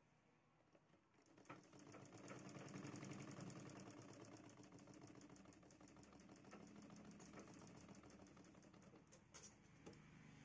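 Domestic straight-stitch sewing machine stitching through cloth: a rapid, even clatter of needle strokes that starts about a second in and runs quietly, with a sharp click near the end.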